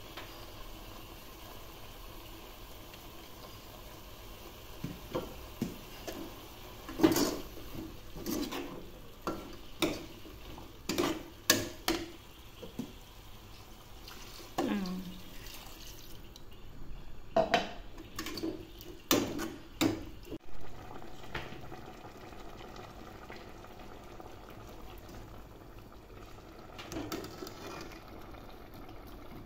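A metal ladle stirring and knocking against a stainless steel cooking pot of shredded vegetables, in scattered clatters. Broth is poured into the pot from a jug about halfway through, over a faint steady hiss.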